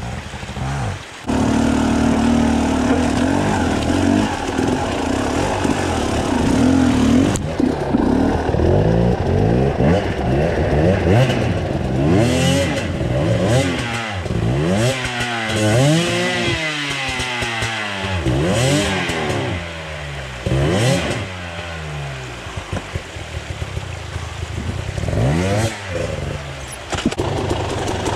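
Enduro dirt-bike engines under hard throttle on a steep, rocky creek-bed climb: a steadier engine note at first, then revs repeatedly rising and falling, about a second or two each, as the throttle is worked for traction.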